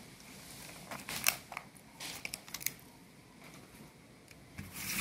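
Handling of a disassembled membrane keyboard: the thin plastic circuit sheet and the plastic key frame give scattered light clicks and crinkling rustles, in small clusters about a second in and around two seconds, with a louder rustle near the end.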